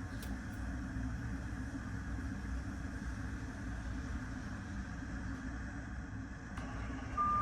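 Steady low rumble with a hiss above it, and one short electronic beep near the end.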